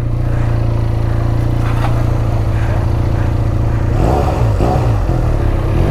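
Inline-twin motorcycle engine running steadily at an even speed.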